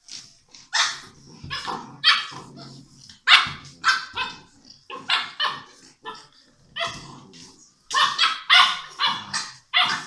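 Six-week-old English Mastiff puppies barking at each other in play: a string of short, high yaps, coming thick and fast in the last two seconds.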